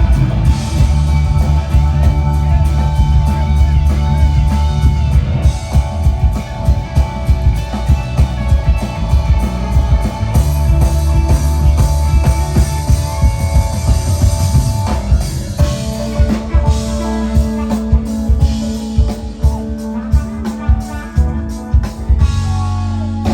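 Live rock band playing an instrumental groove: guitar and bass guitar over a steady drum beat. About two-thirds of the way in the part changes, with one low note held under the beat.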